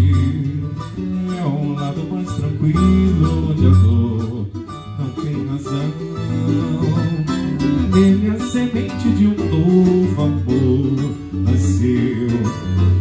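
Nylon-string acoustic guitar and cavaquinho playing together, plucked and strummed, with a man singing over them.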